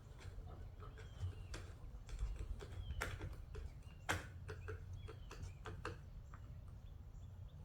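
Irregular light clicks and taps of an A2 rifle stock and its parts being handled as the stock is screwed back down, the sharpest two about three and four seconds in.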